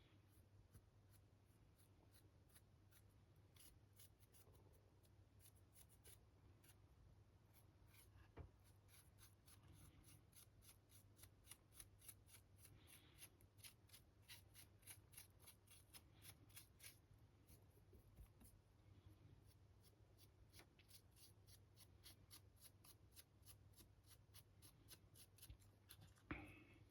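Faint, rapid scratchy strokes of a dry brush flicked back and forth across the raised details of a 3D-printed model, several strokes a second, over a low steady hum.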